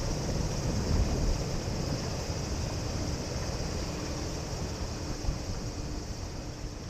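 Distant jet engine rumble of an Airbus A320-214 with CFM56 engines, slowly fading away, with wind buffeting the microphone.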